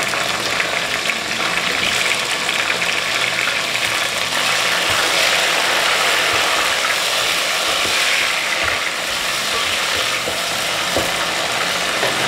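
Sliced bell peppers sizzling in hot oil with fried onions in an aluminium pot, stirred with a wooden spoon: a steady frying hiss with fine crackling.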